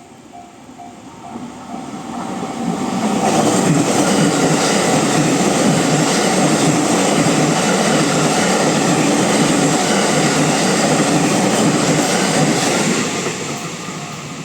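A JR West 223 series twelve-car Special Rapid electric train approaches and runs over the level crossing, building to a loud steady rumble of wheels on rail for about ten seconds before fading near the end. The level-crossing alarm's repeating pulsed tone is heard in the first moments and again as the train fades, drowned out while the train passes.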